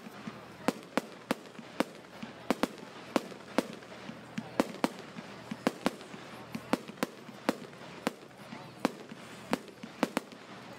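Aerial fireworks going off in quick succession: a run of sharp, irregular bangs, about two or three a second, from shells bursting overhead.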